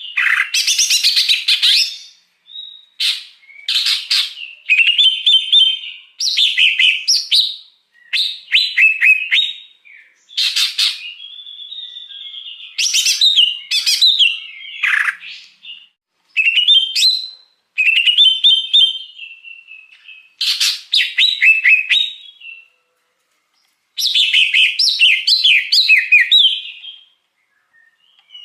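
Greater green leafbird (cucak hijau) singing: a string of rapid, varied whistled and chattering phrases, each a second or two long, with short pauses between and a longer pause about three-quarters of the way through.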